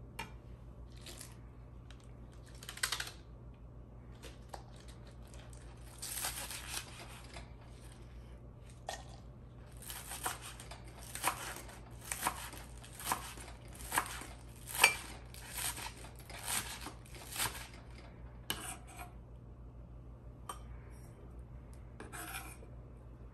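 Kitchen knife slicing green onions on a wooden cutting board: scattered single cuts, then a steady run of crisp chopping strokes at about two a second, thinning out to a few more cuts near the end.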